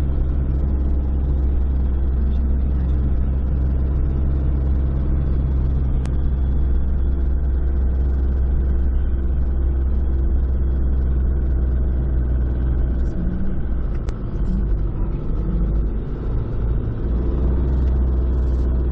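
Motor vehicle engine running steadily with a strong low rumble; the rumble eases and wavers for a few seconds about three-quarters of the way through.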